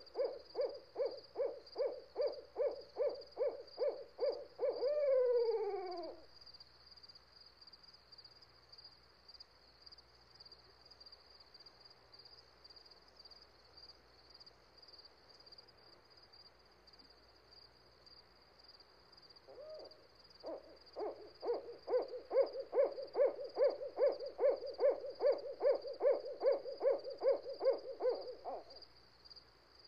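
A rapid run of low hoots, about four a second, ends in a falling slur about five seconds in. After a quiet stretch, a second long run of hoots begins about twenty seconds in and stops shortly before the end. A steady high-pitched buzz runs underneath throughout.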